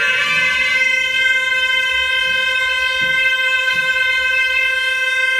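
Gyaling, the Tibetan double-reed shawm, holding one long, steady note.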